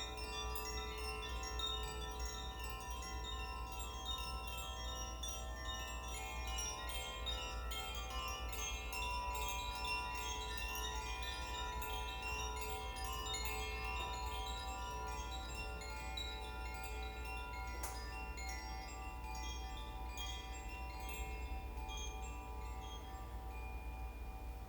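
Koshi chimes played continuously, their clapper striking the tuned metal rods inside the bamboo tube. Many overlapping bell-like notes ring on and blend into a shimmering wash of overtones. The strikes thin out near the end.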